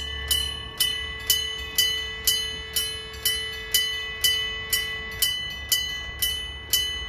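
Japanese railway level-crossing warning bell ringing about twice a second, each strike ringing on briefly. It is the signal that a train is approaching and the crossing is closed.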